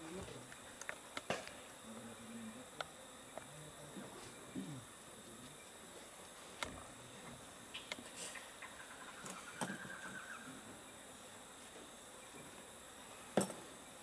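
Faint, scattered clicks and small handling noises from hands working a small bird skin and dissecting tools, with a sharper knock near the end, over a steady high-pitched background tone.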